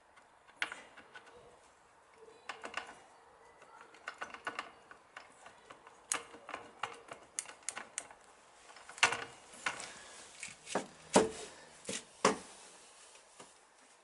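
Metal spanners clicking and clinking against the bolts and gear-change linkage of a Yamaha XS650 motorcycle engine as they are fitted and tightened by hand, an irregular run of small clicks with a few louder knocks in the second half.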